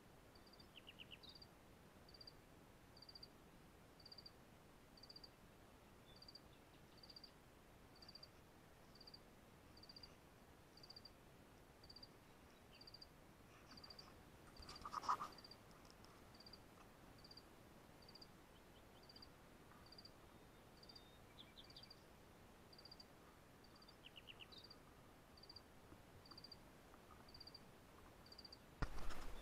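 Faint night ambience of a small insect chirping: a short, high chirp repeats steadily about once a second, with a few other scattered chirps. About halfway through there is a brief louder sound, and a sudden loud noise starts just before the end.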